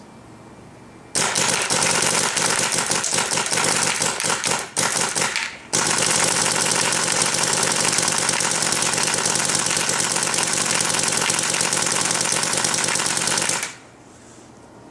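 Planet Eclipse Ego 11 paintball marker with its stock Cure 3 bolt firing in rapid fire: a long, fast string of shots with brief breaks about four and a half to six seconds in, stopping about a second before the end. The shots are loud, peaking around 83 dB on a sound meter.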